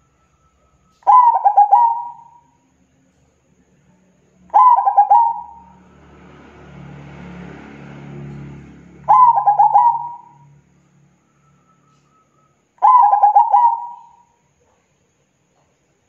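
Zebra dove singing its rolling cooing phrase of quick staccato notes four times, about every four seconds. A faint rushing noise runs underneath in the middle.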